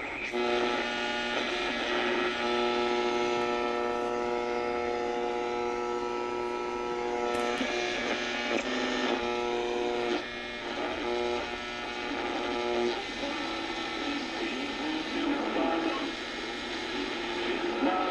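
Old six-band portable radio giving out a steady buzzing hum over hiss and static. The hum breaks off briefly past the middle, and after about thirteen seconds it turns into wavering, shifting noise.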